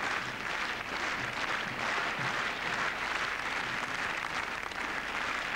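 Large stadium crowd applauding steadily, a dense patter of many hands clapping at once.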